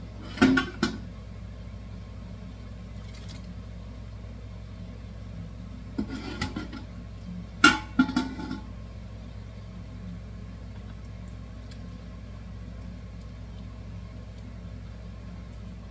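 Glass measuring cup knocking and clinking against an enamelware pot and a plastic canning funnel as hot salsa is scooped and poured into a canning jar: a few clanks near the start, a cluster about six seconds in and the loudest about eight seconds in, over a steady low hum.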